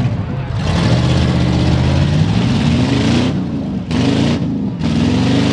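Pickup truck engines in a demolition derby, revving hard as the trucks accelerate and spin on dirt. The pitch climbs and drops several times.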